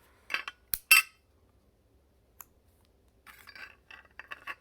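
Sharp metallic clinks and clicks from a Zippo lighter's metal insert and case being handled, loudest about a second in, then a run of softer clicking and rustling near the end.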